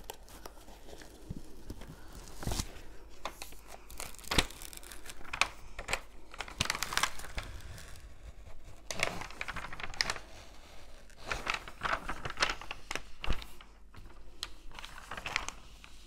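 Protective cover film being peeled back from a sticky diamond painting canvas, crackling and rustling in irregular bursts as it comes away from the adhesive.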